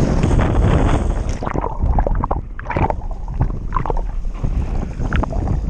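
Wind buffeting an action-camera microphone while the board cuts through choppy water. From about a second and a half in, the rush breaks up into irregular splashing and gurgling of water against the board and camera.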